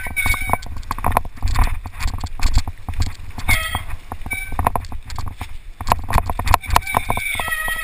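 Mountain bike rattling and knocking over rock steps and loose stone on a steep descent, with a steady low wind rumble on the handlebar camera's mic. The brakes squeal briefly a few times, about three and a half seconds in and again near the end.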